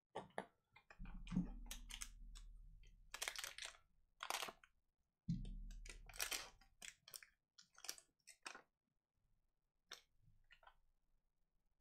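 Foil wrappers of 2018-19 Donruss Soccer card packs crinkling and tearing as packs are pulled out and ripped open, in quick irregular crackles. Two dull bumps, about a second in and about five seconds in, each trailing off into a low hum.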